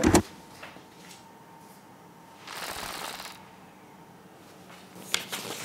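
Background music cuts off right at the start. A sheet of paper then rustles once as it is handled on a desk, about two and a half seconds in, and a few light clicks of pen or paper follow near the end.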